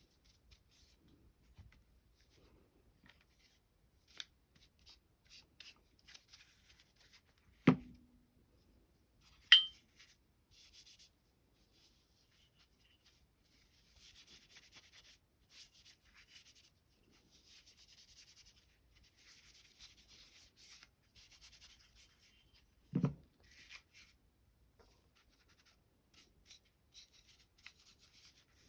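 Cloth wiping a light coat of oil over a pistol's slide and frame, in short spells of soft rubbing. Three sharp knocks break in, about eight seconds in, about a second and a half later, and again about twenty-three seconds in.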